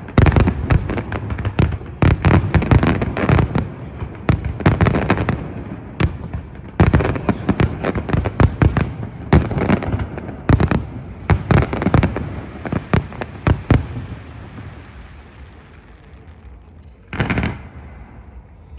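Fireworks finale: a rapid barrage of aerial shell bursts, bangs overlapping with crackle, thinning out after about fourteen seconds into a fading rumble, with one last burst near the end.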